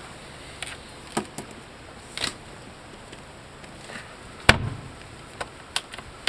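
Fiberglass storage hatch under a boat seat being handled: a few light clicks and knocks from its metal latch and lid, and a louder thump about four and a half seconds in as the lid comes down shut.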